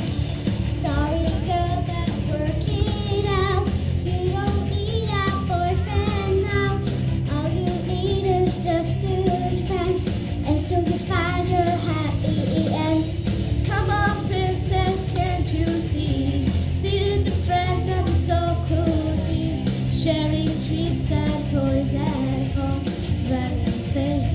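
Children singing a pop-style song over instrumental backing music.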